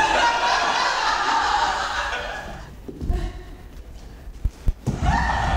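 Several people's voices sounding out together, fading away over about two seconds. A few soft thuds of bare feet on the floor follow, and then the group's voices start up again near the end.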